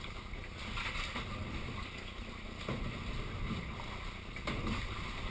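Water sloshing and lapping around a kayak as it is paddled, with a few sharper splashes from paddle blades dipping in.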